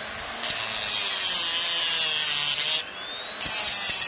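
A small power tool grinding at an edge in two passes: harsh grinding from about half a second in, a break just before three seconds in while the motor's whine rises in pitch, then grinding again.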